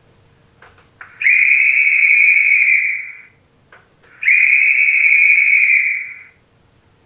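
Two long, steady whistle blasts at one high pitch, each lasting about two seconds, with a short gap between them; faint clicks come just before each blast.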